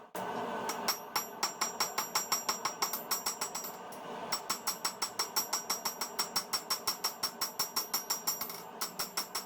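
A hammer striking metal on an anvil in quick, even blows, about five a second, each with a bright metallic ring. There is a brief pause about four seconds in and another near the end.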